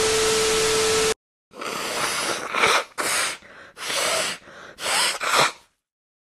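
A burst of loud static-like hiss with a steady tone in it, cut off about a second in. Then a person snorting hard through the nose: four or five long, noisy sniffs in a row.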